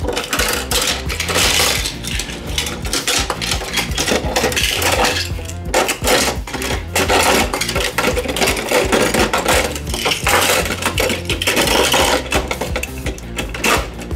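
Diecast toy cars clattering and clicking against a plastic toy garage and each other as they are handled and pushed into its bays, with a plastic garage door being worked: a busy run of small rattles and clicks.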